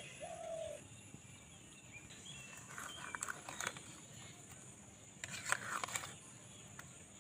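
A metal spoon turning soaked boras over in a bowl of whisked curd, with faint scrapes and light clicks against the bowl, loudest a little past the middle. A short pitched animal call sounds right at the start.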